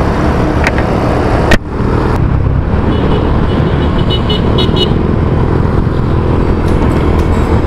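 Wind buffeting the microphone and road noise on a moving motorcycle. There is a sharp knock about a second and a half in, and a few short high horn toots around the middle.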